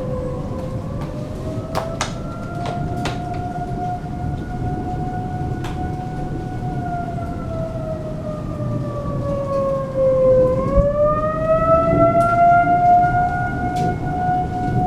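Outdoor tornado warning siren wailing: its tone sinks, rises and holds, sinks again about two-thirds through and climbs back, growing louder after the second dip. Steady rain sounds underneath, with a few sharp ticks.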